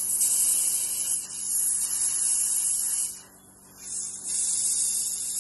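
Airbrush spraying paint with a steady high hiss over a constant low electric hum. The hiss cuts out briefly a little past three seconds in, then resumes.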